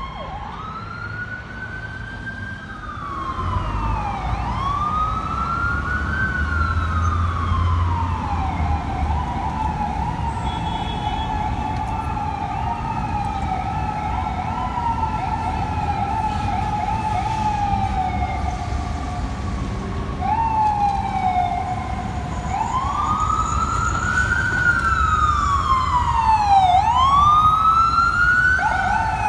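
Electronic emergency-vehicle sirens: a slow rising-and-falling wail that switches to a fast yelp and back again several times. Underneath is the low rumble of a heavy engine in traffic.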